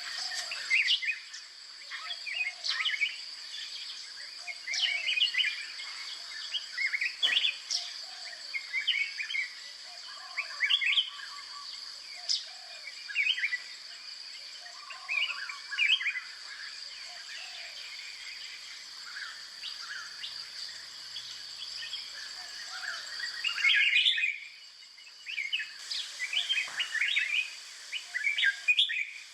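Birds chirping and calling again and again, over a steady high-pitched hum.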